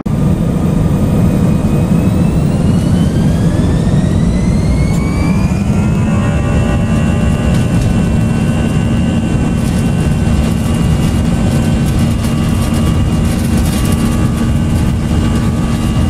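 Jet engine spooling up: a loud rush with a whine that rises over the first six seconds or so, then holds steady, and cuts off suddenly at the end.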